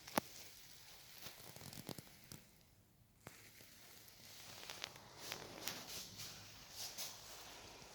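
Handling noises: rustling with scattered sharp clicks and taps, the loudest click shortly after the start and the rustling busier in the second half.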